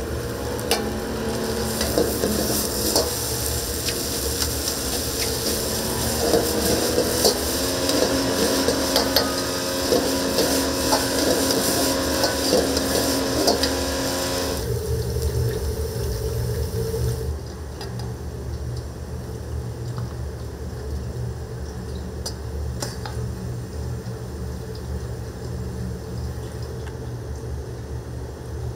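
Stir-frying in a wok: food sizzling loudly while a metal ladle clanks and scrapes against the wok. About halfway through the sizzle cuts off abruptly, leaving a steady low hum and a few light clinks.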